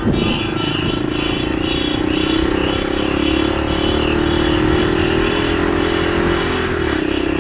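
Motorcycle engine running under way, heard from on the bike; its note rises slowly, then drops near the end.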